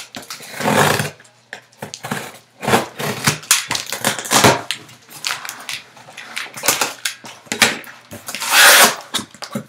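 Corrugated cardboard case being handled and rubbed close to the microphone: a series of irregular scrapes and rustles, the loudest near the end.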